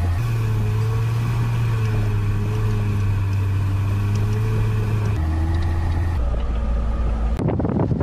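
SsangYong Rexton engine running steadily at low speed, heard from inside the cabin as a low drone that shifts in pitch a few times. About seven seconds in it gives way abruptly to wind buffeting an outside microphone.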